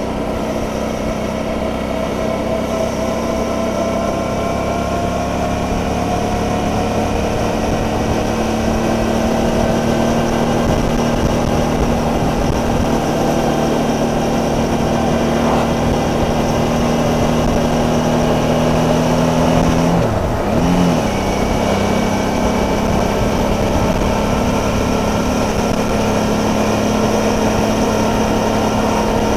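Suzuki DL650 V-Strom's V-twin engine running under way at road speed, heard from on the bike with wind rush over the microphone. Its note rises slowly over the first several seconds, then briefly dips and picks up again about twenty seconds in.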